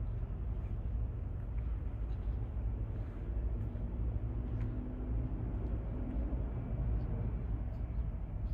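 An engine running steadily, a low rumble.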